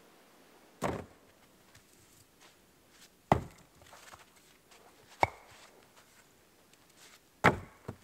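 Cut firewood logs knocking hollowly as they are tossed into a plastic sled, four loud knocks about two seconds apart, with a lighter knock right after the last.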